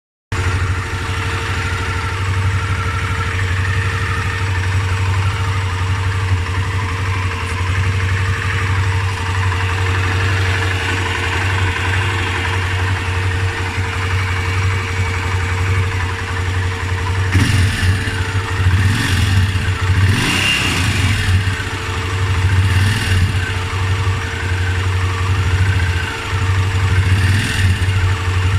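Honda Transalp 600's V-twin engine idling, with a thin steady whistle running over the engine note. From a little past halfway the sound grows busier, with wavering higher tones coming and going.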